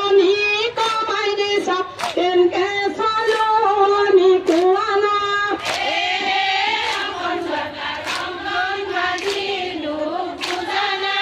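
Women singing together as a group, with hand claps keeping a beat roughly every half second to a second.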